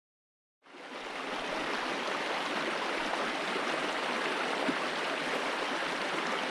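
Small mountain stream running, a steady rush of water that fades in from dead silence about half a second in.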